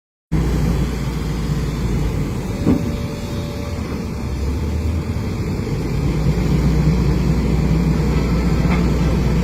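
Excavator diesel engine running steadily with a low rumble, a short knock a little under three seconds in, and slightly louder from about six seconds in.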